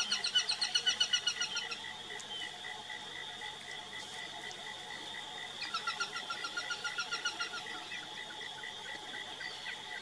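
A falcon calling in rapid chattering series of sharp notes, about six or seven a second: one bout of about two seconds at the start and another from about halfway through, over a steady high-pitched buzz.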